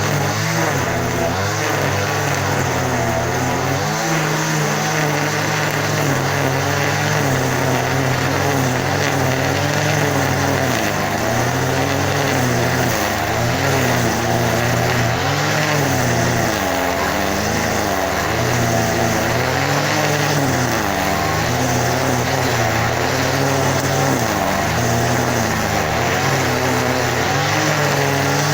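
Engine running steadily, its pitch wavering up and down every second or two.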